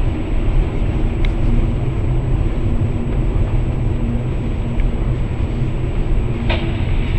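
Driving noise inside a moving car picked up by a dashcam: a steady low engine and road rumble with a faint steady hum, and a faint click about a second in and another near the end.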